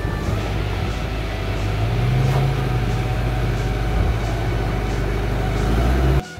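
Off-road 4x4 engine running steadily at low speed through mud, its pitch lifting slightly about two seconds in, over a steady hiss of heavy rain. The sound drops away abruptly at the very end.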